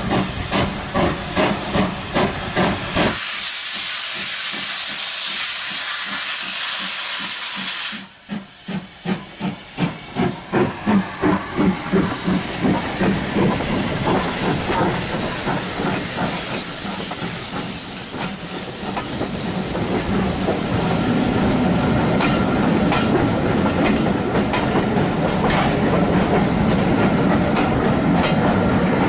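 Steam locomotive working a train past at close range: regular exhaust chuffs, broken for about five seconds by a steady hiss of steam, then faster, louder chuffs as the engine goes by. It gives way to the steady running noise of the passing coaches, with the wheels clicking over the rail joints.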